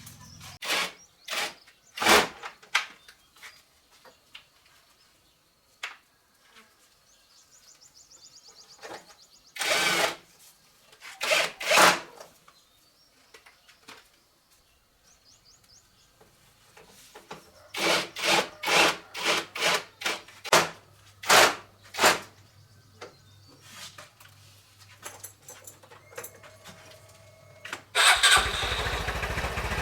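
A series of sharp clacks and knocks, then a couple of seconds before the end the Honda RSX 150cc motorbike's engine starts and keeps running loudly.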